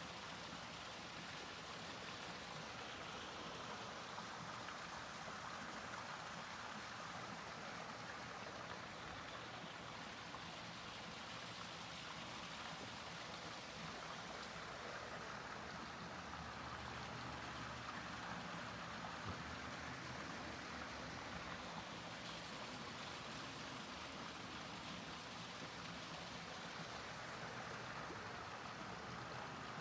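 Faint steady rushing noise, like running water, rising and falling gently in level.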